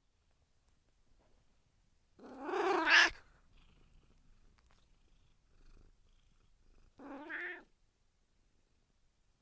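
Domestic cat meowing twice: a loud call of about a second that rises in pitch toward its end, then a shorter, quieter meow several seconds later.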